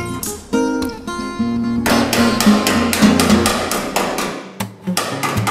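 Solo acoustic guitar music, joined about two seconds in by rapid hammer-and-dolly taps on a welded steel body seam, several sharp metallic taps a second with a short pause before the end.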